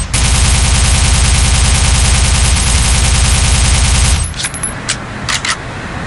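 FAMAE Mini-SAF 9mm submachine gun firing one long full-auto burst of about four seconds. It is followed by a few fainter, separate sharp clicks.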